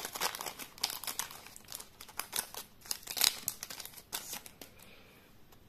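Foil wrapper of a Yu-Gi-Oh trading-card booster pack crinkling and crackling in quick, irregular bursts as it is handled and torn open. The crackling thins out and stops near the end.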